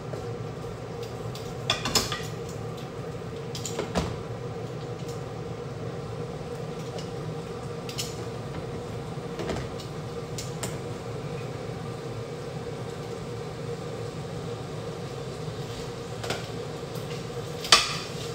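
Marinated beef strips being laid into a buttered frying pan with metal tongs: short clicks and clatters of the tongs against the pan and plastic container, the loudest about two seconds in and near the end, over a steady low hum and faint hiss.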